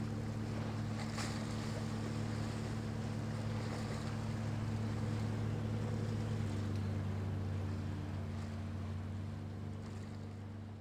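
Ship or boat diesel engine droning steadily across the water, a low even hum with a light wash of wind and water noise, easing down near the end.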